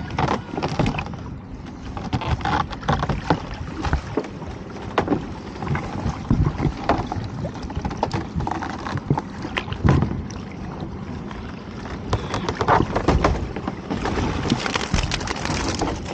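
Sea water sloshing and slapping against a small boat's hull while a lobster pot is hauled up the side on its rope, with irregular knocks and splashes as the pot comes out of the water.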